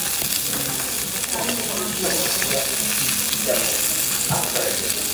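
Slices of beef sizzling steadily on a tabletop Korean barbecue grill.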